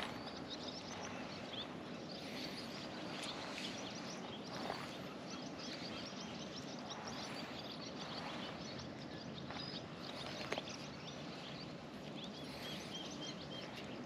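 Many small birds chirping and calling in quick, overlapping notes over a steady background hiss.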